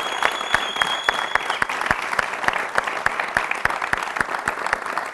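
Studio audience applauding: many hands clapping, thinning toward the end, with a high steady tone over the first second and a half.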